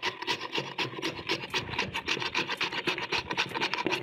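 A carrot being pushed quickly back and forth across a plastic vegetable grater-slicer, a fast even run of scraping strokes.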